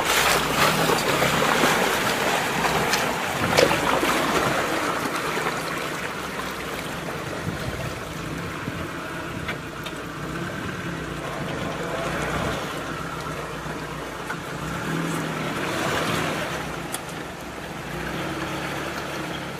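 Lada Niva's engine running as the car drives through swamp water and mud, with water rushing and splashing around it. There are a couple of sharp knocks about three seconds in.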